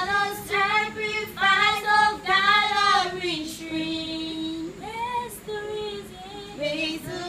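A young girl singing unaccompanied, a song in several short sung phrases with a longer, lower held note about four seconds in.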